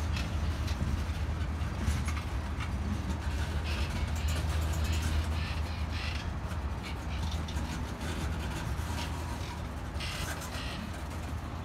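Freight train tank cars rolling past at a steady pace: a continuous low rumble of steel wheels on rail, with irregular higher-pitched clanks and squeals that come and go.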